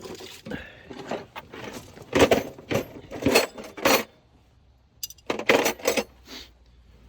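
Metal wrenches clinking and clattering against each other as a different-size wrench is picked out, a run of sharp metallic clinks in two clusters, the second just after five seconds in.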